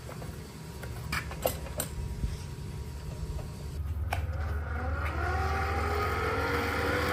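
A few metal clinks as the antique Buffalo Forge hand-cranked blower is fitted to the forge's air pipe. Then, from about four seconds in, the blower is cranked and its geared fan spins up, giving a whine that rises in pitch and then holds steady.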